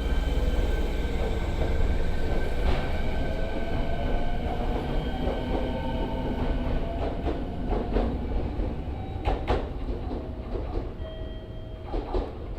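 Fukuoka City Subway 1000N series electric train running, with its jet-plane-like whine: several steady high tones over a low rumble, and a tone climbing in pitch for several seconds. Sharp knocks come about nine and a half seconds in and again near the end.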